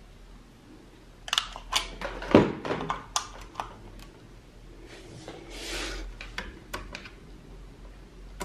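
Sharp clicks and knocks of a Euro power plug pushed into a wall socket and the rocker power switch on the back of a Strong 210 manicure drill's control unit being clicked, with a short rustle of the cable in between; the loudest is a knock with a low thud about two and a half seconds in. No motor starts: the unit is dead.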